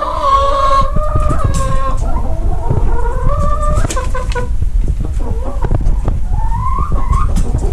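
Domestic chickens clucking, with several drawn-out, wavering calls one after another. Clicks and rubbing from handling close to the microphone run underneath.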